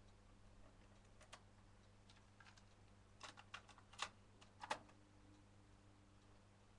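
Faint plastic clicks and clatter of a cassette being seated in a TEAC A-650 cassette deck and its door pushed shut, a few scattered clicks with the sharpest about four seconds in, over a low steady hum.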